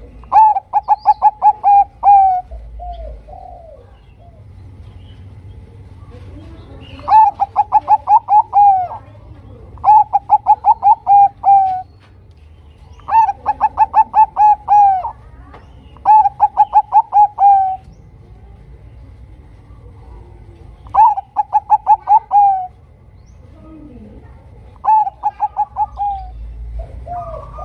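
Zebra dove (perkutut, Bangkok type) singing: seven runs of quick, evenly spaced cooing notes, each run about one and a half to two seconds long and ending on a longer falling note, with pauses of one to four seconds between runs.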